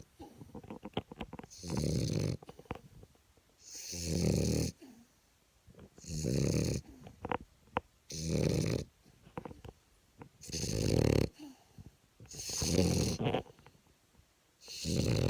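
French bulldog snoring: a rasping snore about every two seconds, with faint clicks between some of the snores.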